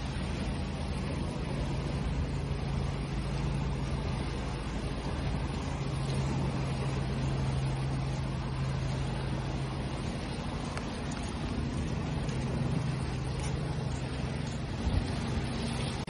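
Steady rushing noise of water waves, with a low steady hum underneath.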